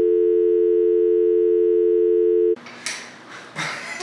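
Steady two-note electronic tone, like a telephone dial tone, that cuts off suddenly about two and a half seconds in, giving way to quiet room sound with a couple of short knocks.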